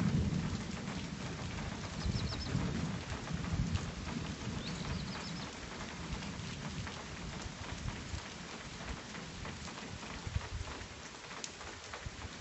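Steady rain falling, with many small drops pattering, under a low rumble of thunder that is loudest at the start and dies away over the first few seconds.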